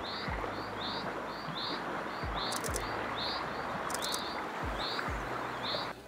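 Common chaffinch giving a short repeated call note, about two a second, over a steady background hiss.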